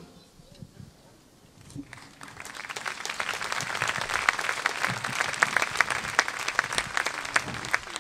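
Audience applause at the end of a live song: after a brief hush, clapping starts about two seconds in and builds to steady applause.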